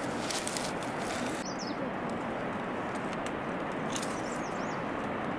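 Small birds chirping briefly, once about a second and a half in and in a short run of chirps near the end, over a steady hiss of background noise. A few light clicks come right at the start.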